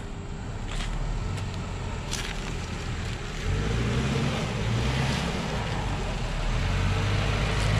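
Engine of a first-generation Mitsubishi Pajero pulling under load as the 4x4 climbs a sandy slope. It grows louder, with the engine note stepping up about halfway through as the driver gives it more throttle.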